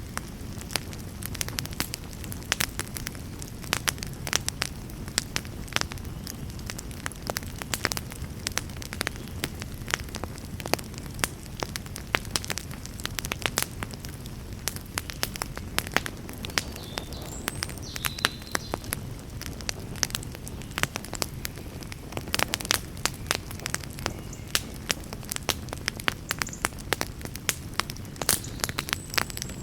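Wood fire burning in a fireplace: a steady low rumble of flames with frequent sharp, irregular crackles and pops, coming thicker in the last few seconds.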